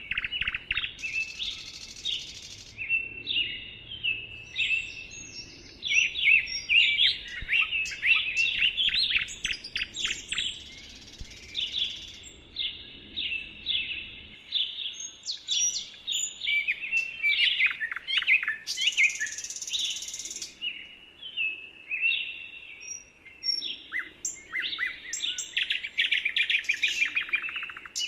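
Several songbirds chirping and singing in quick, overlapping phrases of high, fast down-slurred notes. A few brief high hissing buzzes sit among them.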